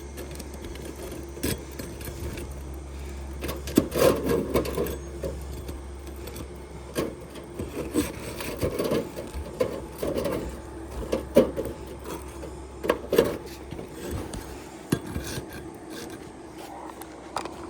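Gutter guard and asphalt roof shingles scraping and rubbing as they are worked by hand, in irregular strokes with a few sharp knocks, over a steady low hum.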